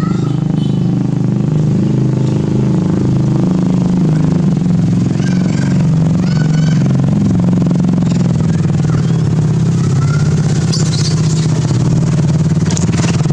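A small engine running steadily, a loud low drone throughout. Faint higher sounds rise over it about five to seven seconds in and again near eleven seconds.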